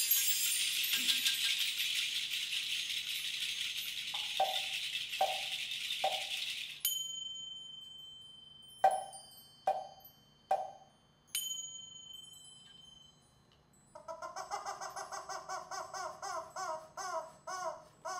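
Small hand percussion played solo: a mark tree's bar chimes shimmer for the first several seconds, then scattered short squeaks and sharp taps with a long high ringing tone. About two-thirds of the way in, a rubber chicken is squeezed in a fast run of squeaks.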